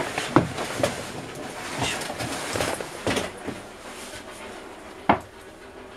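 Irregular knocks and rustling handling noise from someone moving about a boat's cabin with a handheld camera, with a sharp knock about five seconds in.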